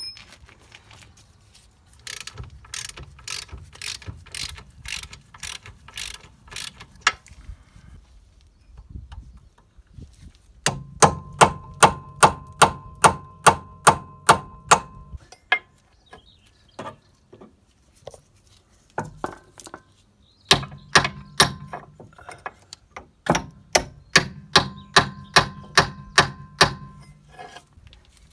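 Ratchet tool working a seized pinch bolt on a car's front hub knuckle: runs of sharp ratchet clicks, about three a second, with short pauses between them and a low hum under the louder runs.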